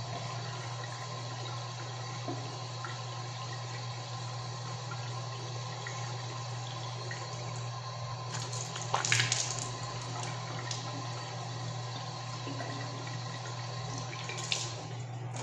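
Tap water running steadily into a bathroom sink, with a short louder burst about nine seconds in.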